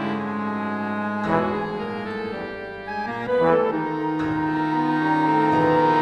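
MIDI-rendered wind ensemble playing sustained chords that shift about a second in and again around three and four seconds in, swelling louder toward the end.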